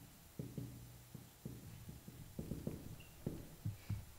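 Dry-erase marker writing on a whiteboard: a run of soft taps and strokes as a short line is written.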